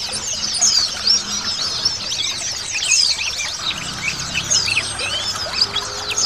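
A dense chorus of many white-eyes (pleci) chirping and twittering over one another: a continuous stream of quick, high-pitched notes that bend up and down, with a steady trickle of water underneath.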